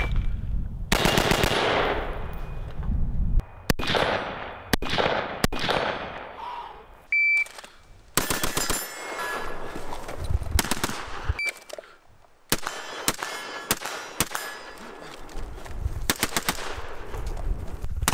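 AR-15-pattern 5.56 rifles firing fast strings of semi-automatic shots, with short pauses between strings. A few short high beeps sound between strings, one near the start, one about 7 seconds in and one about 11 seconds in.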